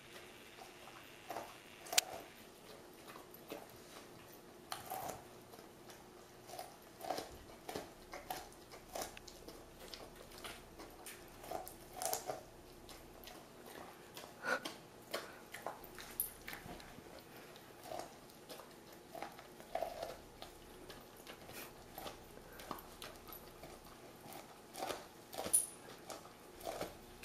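An Airedale terrier gnawing on a corn cob: irregular crunches and clicks of teeth on the cob, one or two a second, with a sharper crack about two seconds in.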